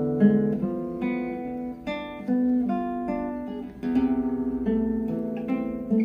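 Acoustic guitar music played back through a hi-fi system: plucked notes and chords that ring and fade, with a faster strummed chord about four seconds in.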